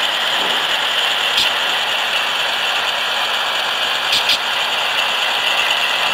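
Model train locomotives running along the layout track: a steady mechanical whirring of motor and gears, with a few sharp clicks, two of them close together about four seconds in.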